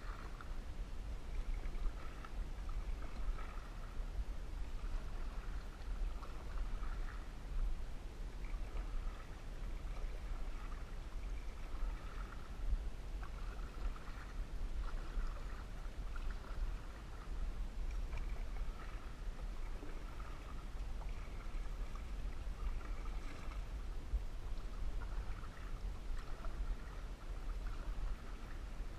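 Canoe being paddled on a lake: paddle strokes swishing and dripping in the water about every second or two, with a steady low rumble underneath.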